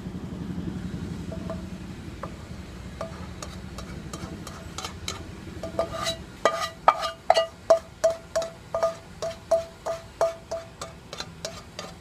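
A plastic spatula knocking and scraping against a non-stick wok as the last of a stir-fry is scraped out onto a plate. The pan gives a short ringing tone with each knock: a few spaced knocks at first, then a quick run of about three a second over the last several seconds.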